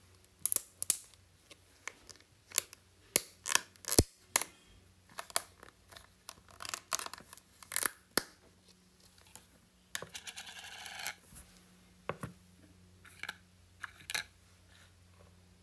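Thin clear plastic lid being pried off a plastic slime tub: a string of sharp plastic clicks and crackles, a brief scraping rush about ten seconds in, then a few more clicks near the end.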